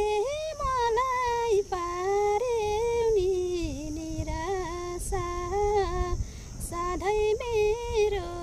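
A young woman singing a Nepali song unaccompanied, holding long notes with slides and small trills between them, in short phrases.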